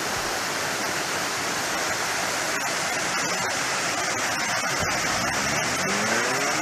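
A mountain creek rushing and splashing over boulders in a small cascade: a steady, even hiss of moving water.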